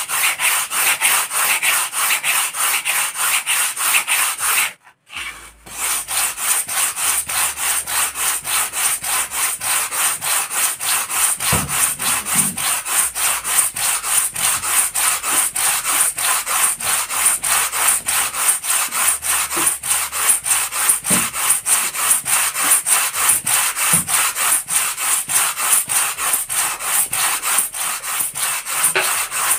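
Sandpaper on a wooden sanding block rubbed briskly back and forth over a foam model-plane wing, at about three strokes a second, shaping and thinning the wing. The strokes stop briefly about five seconds in, then carry on evenly.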